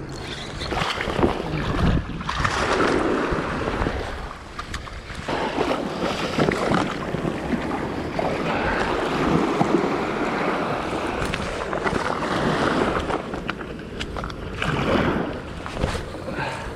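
Wind buffeting the microphone over small waves washing onto a sandy beach, with splashing as a hooked striped bass is dragged through the shallows. The noise swells and falls in gusts.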